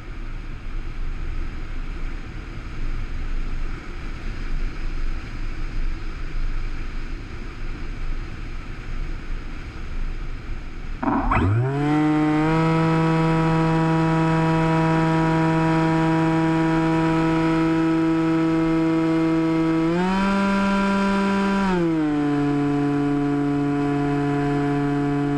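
Wind rushing over the microphone of the camera aboard an electric RC FPV plane, then, about eleven seconds in, the plane's electric motor and propeller throttle up with a quick rise in pitch into a loud, steady whine. Later the pitch steps up for about two seconds and settles back as the throttle is eased.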